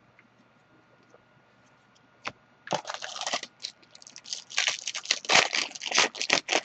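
Trading-card packaging and cards being handled: a single click, then a quick run of crinkling and clicking that gets busier and louder over the last couple of seconds.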